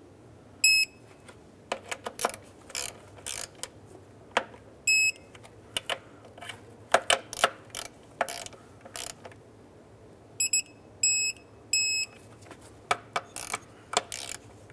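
Digital torque wrench ratcheting in short clicking strokes as throttle-body bolts are tightened to 9 ft-lb, with five short high beeps as it reaches the set torque, three of them in quick succession about ten seconds in.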